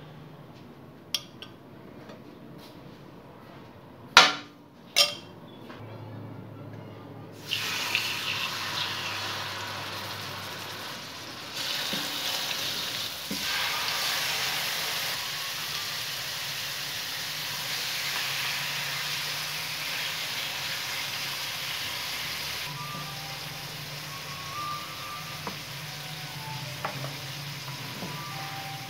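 A few sharp knocks, then chicken pieces start sizzling in hot oil about seven seconds in, a steady frying hiss that carries on.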